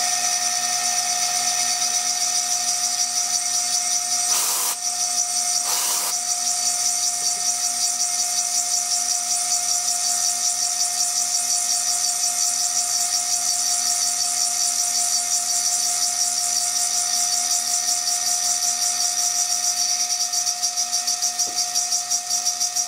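High-speed CNC milling spindle running steadily while a sharp, freshly reground cutter engraves the glass of a beer bottle: a high-pitched whine over a steady lower tone. Two short sharp sounds come about four and a half and six seconds in.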